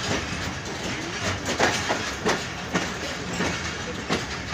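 Train running through a station yard, heard from on board: a steady rumble of the wheels with several sharp, irregularly spaced clacks as they pass over rail joints and points.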